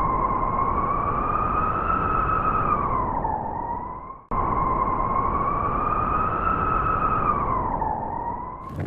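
Howling blizzard wind: a whistling tone that slowly rises and sinks over a rushing noise. It breaks off briefly about four seconds in and comes again in the same shape.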